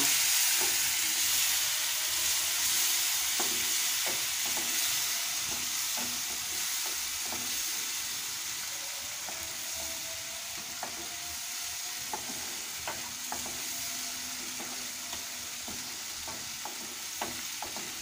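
Onion and spice masala sizzling in a frying pan with a splash of water, stirred with a wooden spatula that scrapes and clicks against the pan. This is the masala being cooked down, and the sizzle slowly grows quieter.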